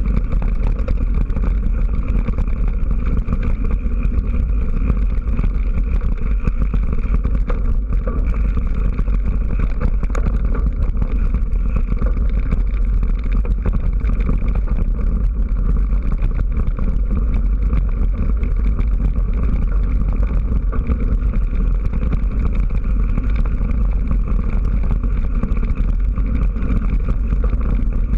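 Mountain bike rolling fast over a gravel and dirt track: a steady, loud rumble of tyres on the ground and wind on the microphone, with no let-up.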